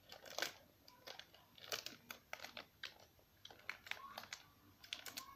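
Close-up chewing of gummy sweets with wet mouth clicks, along with a small plastic sweet packet crinkling as it is handled. Both come as irregular short sharp clicks.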